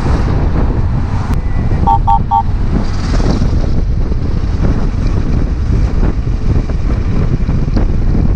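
Yamaha XT660Z Ténéré single-cylinder engine running at road speed, with heavy wind rush on the microphone. Three short beeps sound about two seconds in.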